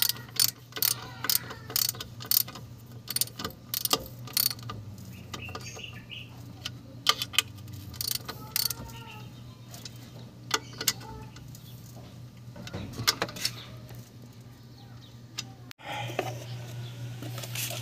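Socket ratchet clicking in quick runs of sharp ticks as the bolts of a clutch pressure plate are turned down onto the flywheel. Birds chirp lightly over a steady low hum.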